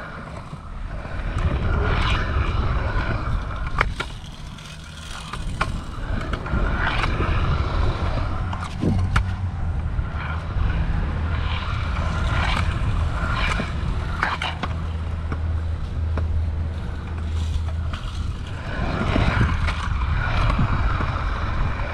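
Kick scooter wheels rolling over skatepark concrete: a steady low rumble that swells and eases, with sharp clicks scattered through it.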